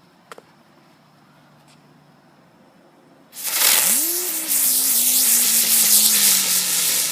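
Ground bloom flower firework catching about three seconds in and spinning with a loud hiss. Within the hiss a tone rises quickly, then slowly sinks as it spins. A short click comes near the start.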